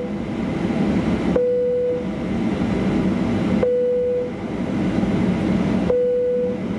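Airliner cabin chime on a Boeing 737-800 sounding a single low 'pon' tone, repeated about every two seconds: the tail of one chime, then three more. Under the chimes is the steady rumble of the cabin as the jet taxis.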